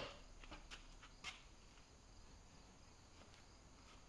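Near silence: faint room tone, with a few light knocks in the first second and a half as the banding wheel and pots are handled.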